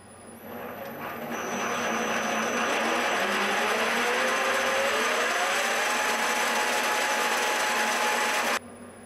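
Milling machine spindle running up to speed, driving the rotary encoder through a toothed belt. The steady whirring noise builds over a couple of seconds, and a whine rises in pitch as the spindle speeds up, then holds steady. It stops abruptly near the end.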